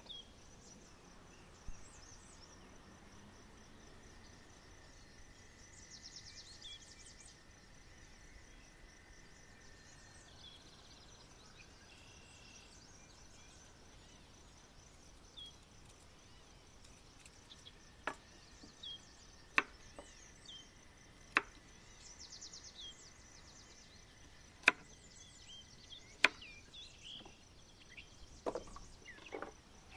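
Outdoor ambience with a steady high insect hum and a few bird chirps, then, in the second half, about half a dozen sharp chopping knocks one to two seconds apart.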